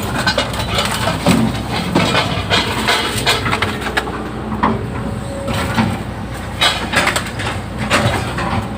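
Hydraulic excavator's diesel engine running steadily while digging a ditch in swamp ground, with repeated sharp cracks and knocks.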